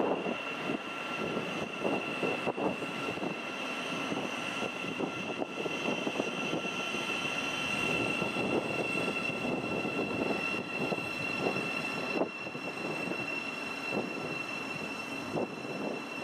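Thameslink Class 700 electric multiple unit running with a steady high whine over a broad rumble of wheels and equipment. A lower part of the whine drops out about twelve seconds in.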